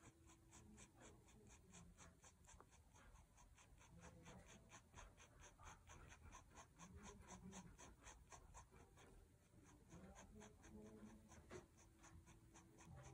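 Faint scratching of a Staedtler Pigment Liner 0.1 fineliner on paper: quick short strokes repeated about five times a second, as fur is built up with short lines.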